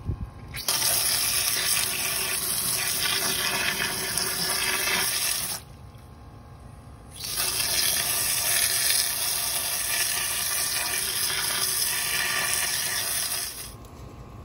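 Garden hose spray nozzle shooting a hard jet of water into a muddy hole, washing out the dirt. It comes in two long bursts, with a break of about a second and a half in the middle.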